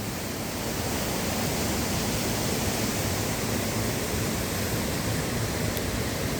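Steady rush of a waterfall or cascading river: an even, unbroken sound of falling water.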